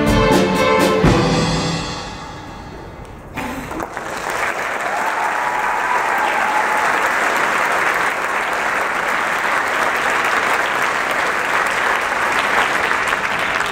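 School string orchestra ending a piece on a held final chord that stops about a second in and rings out in the hall. About three seconds in, audience applause starts and keeps going steadily.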